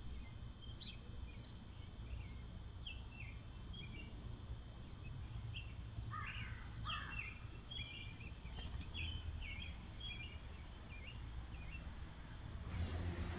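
Birds chirping and calling on and off, short high chirps over a faint steady low rumble, busiest in the middle; a wash of hiss rises near the end.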